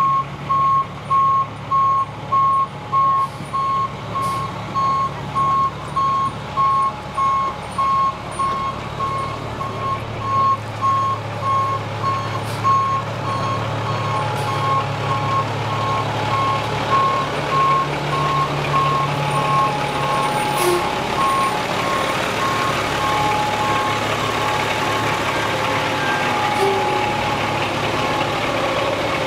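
A 2007 Seagrave fire engine's backup alarm beeping steadily, about one and a half beeps a second, as the pumper reverses. Its diesel engine drones underneath, louder midway through.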